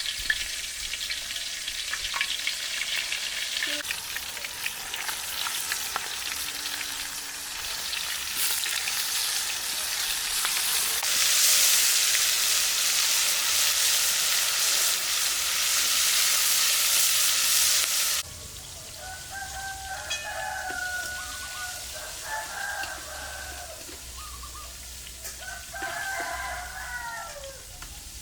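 Blue crabs with chili sizzling as they stir-fry in a pan, loudest about halfway through, until the sound cuts off abruptly about two-thirds in. A rooster then crows three or four times.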